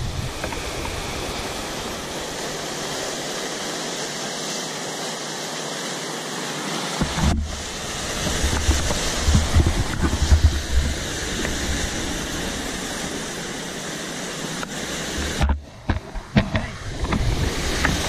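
Steady rushing of a rocky mountain stream flowing over boulders, with low wind buffeting on the microphone in the middle stretch.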